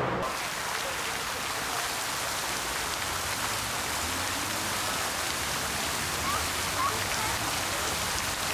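Fountain water splashing and falling into its stone basin: a steady, even rushing hiss.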